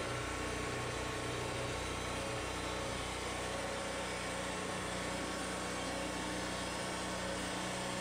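Wood-Mizer LT40 portable band sawmill running steadily as its saw head travels along a white oak board, resawing it; an even engine hum with no change in pitch or loudness.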